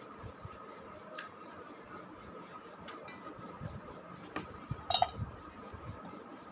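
A knife scraping the skin off a bitter gourd, in small irregular scrapes and clicks, with one sharp metal clink about five seconds in, and a faint steady hum underneath.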